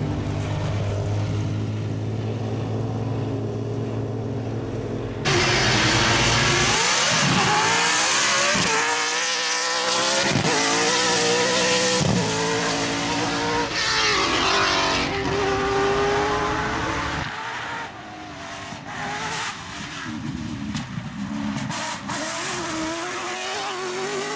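BMW V8 engine of a Peugeot 205 rally car at full throttle on a rally stage. It revs hard, with the pitch rising and dropping through gear changes. After a steady low drone in the first five seconds, the loud engine cuts in suddenly; the last several seconds are quieter and choppier.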